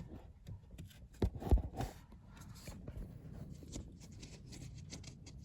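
Faint clicks and a few light knocks of small parts being worked onto a car's pedal shaft: washers and spacers going on behind the clutch and brake pedals. The knocks fall between about one and two seconds in.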